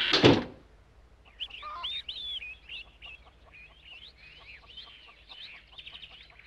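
Farmyard ambience: chickens clucking and small birds chirping. It follows the tail of a music cue, which ends in a loud falling sweep in the first half second.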